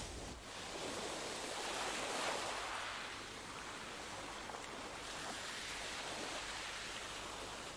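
Sea waves washing onto a sandy shore: a steady hiss of surf that swells about two seconds in.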